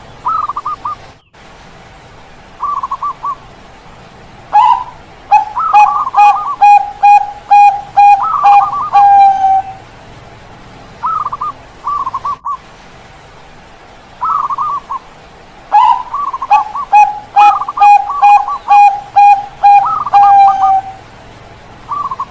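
Zebra doves (Bangkok-bred perkutut) cooing: short rolling trills, then twice a long song of quick, evenly spaced coo notes, each song several seconds long.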